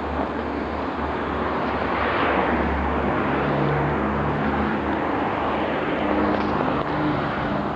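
Steady outdoor street noise: traffic running with a low engine hum, swelling briefly about two seconds in as a vehicle passes.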